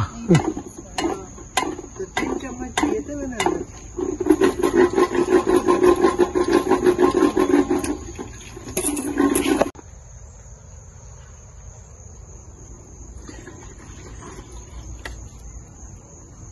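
Wooden lassi churner (madhani) spun between the palms in a steel pot, knocking against the metal: separate knocks at first, then a fast, continuous rattle from about four seconds in that stops abruptly near ten seconds. Crickets chirp steadily underneath.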